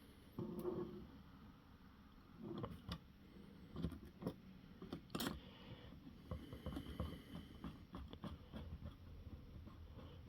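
Faint, scattered clicks, taps and light rattles of small RC car parts being handled while long suspension links are screwed onto the rear axle.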